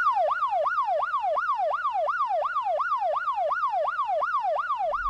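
Police car siren in fast yelp mode: a wail that jumps up and sweeps down in pitch, repeating about three times a second.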